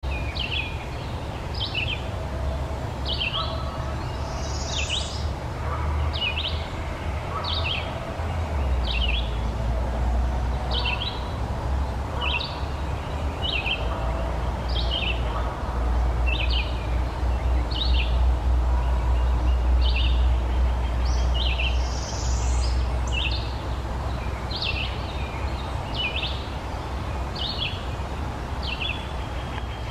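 A bird repeating a short call about once every second and a half, over a steady low rumble.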